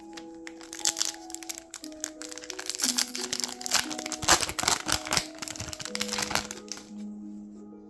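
Foil wrapper of a collectible card pack crinkling and tearing as it is opened by hand, loudest about halfway through and dying away near the end. Soft background music with held notes plays underneath.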